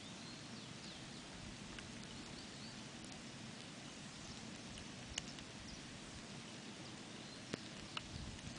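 Light steady rain hiss with birds chirping a few times in the first couple of seconds, and a few sharp ticks of drops about five seconds in and near the end.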